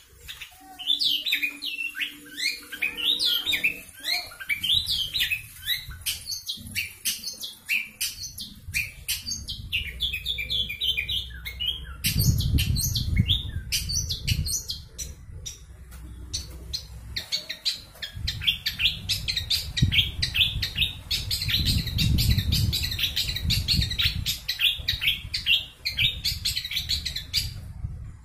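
Caged long-tailed shrike (cendet) singing a fast, continuous rolling song of rapid high chirps and short notes, with barely a break. A low rumble sits underneath in two stretches.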